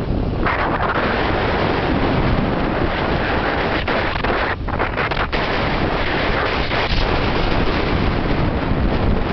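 Wind buffeting the microphone of a moving motorcycle, a steady loud rush with a few brief lulls about four to five seconds in.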